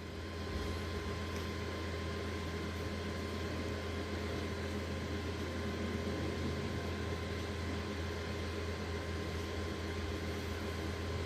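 Steady machine hum: a constant low drone with a few faint fixed tones and a light hiss over it.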